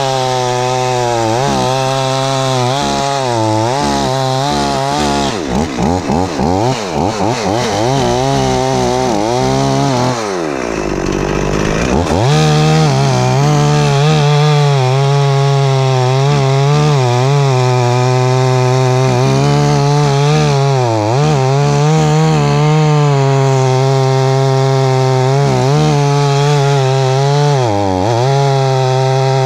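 Stihl 044 two-stroke chainsaw running at high revs while cutting through a downed tree trunk. Its engine speed wavers up and down from about five seconds in, drops sharply for a moment around ten seconds, then picks back up and holds steady under load, with one more brief dip near the end.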